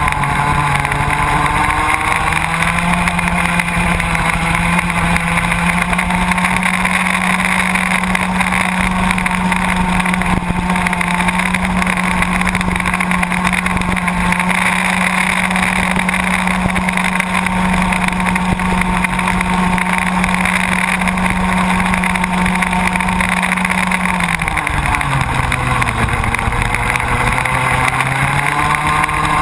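Baby ROK kart's 60cc two-stroke engine, heard close up from on board, racing at full throttle. The revs climb in the first couple of seconds and hold high and steady down a long straight. They fall about 24 seconds in as it slows for a corner, then climb again near the end.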